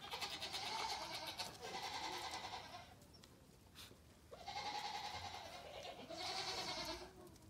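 Goat bleating: four long, wavering calls in two pairs, the second pair about three seconds after the first.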